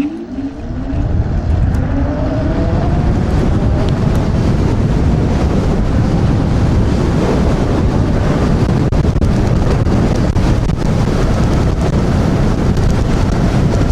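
Electric scooter accelerating hard from a standing start. A motor whine rises in pitch over the first few seconds, then heavy wind noise buffets the microphone at speed.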